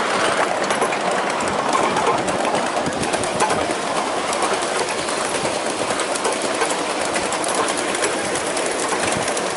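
Ride-on 1.5-inch scale miniature train under way, its wheels rolling and clattering steadily along the small-gauge track, heard from aboard.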